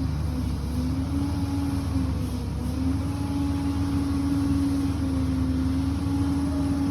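Liebherr 746 crawler bulldozer's diesel engine running steadily, with a low rumble and a humming tone that dips slightly in pitch now and then.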